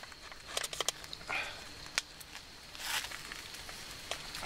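A folding knife sawing through a baguette's crust, with short crunchy rustles of the crust and a few sharp ticks.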